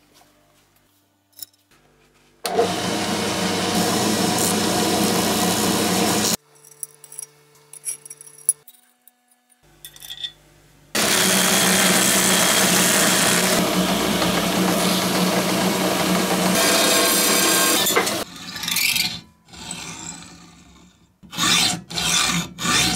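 Workshop sounds in cut-together pieces: a power tool running steadily in two long stretches, with a few clicks and light handling noises between them, then hand hacksaw strokes cutting through a steel screw held in a vise, about three strong strokes near the end.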